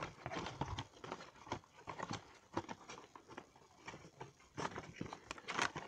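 Cardboard model-railway wagon box being handled and opened close to the microphone: irregular light taps, scrapes and rustles, busier near the end.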